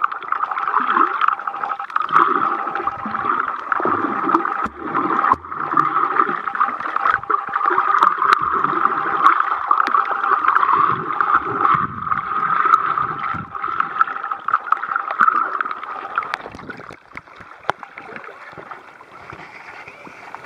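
Muffled underwater water noise picked up by a submerged camera: a steady rushing drone with irregular gurgling and occasional sharp clicks. About sixteen seconds in the drone stops and the sound turns quieter as the camera comes up to the surface, leaving gentle water sounds.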